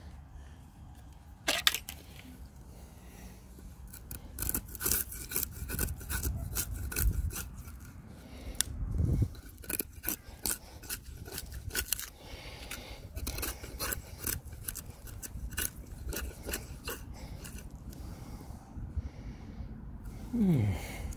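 Knife blade cutting and scraping bark off an oak log in short, irregular strokes, peeling back the surface to check how deep the woodworm has gone.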